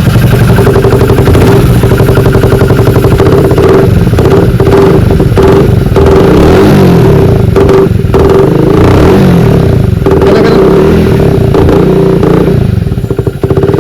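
Hero HF Deluxe single-cylinder motorcycle engine fitted with an aftermarket exhaust sound attachment, running loud and being revved. The revs rise and fall a few times, about midway and again a little later, over a steady droning tone from the exhaust.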